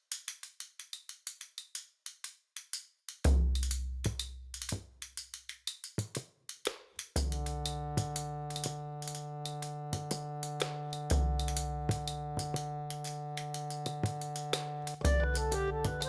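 Dramatic intro music. It opens with fast, even ticking percussion, has a deep bass hit about three seconds in, and from about seven seconds in holds a sustained chord over a low drone, with further deep hits every few seconds.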